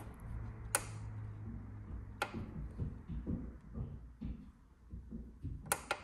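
Sharp clicks of a finger pressing the push buttons on a 12-volt compressor fridge's plastic control panel, one near the start, one about two seconds in, and two close together near the end as the ON/OFF button is pressed to power it up. A low steady hum stops about two seconds in.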